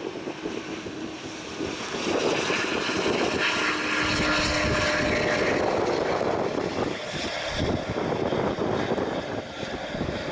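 Jet engine noise from a Boeing 777-200ER airliner rolling out on the runway after landing. It is steady and noisy, swells about two seconds in, and eases slightly near the end.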